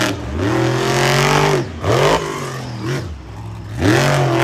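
Monster truck engine revving hard in bursts: a long rev held for about a second and a half, a quick blip, then another rev climbing near the end.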